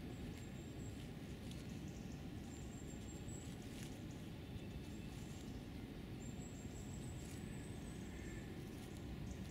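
Hedgehog moving and foraging, with small rustles and ticks over a steady low rumble. Faint thin high tones come and go three times.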